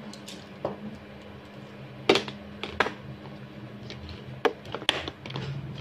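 Scattered light clicks and knocks of small objects being handled, about eight in all, the loudest about two seconds in, over a steady low hum.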